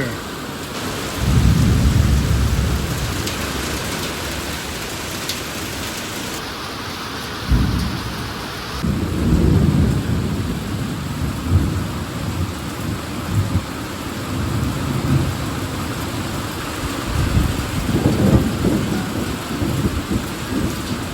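Thunderstorm: steady rain with rolling thunder, a long rumble about a second in, a sharper clap about seven seconds later, and further rumbles after that and again near the end.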